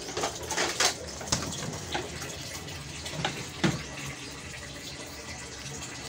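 Water running steadily, with a few sharp knocks and clinks over it, the loudest about three and a half seconds in.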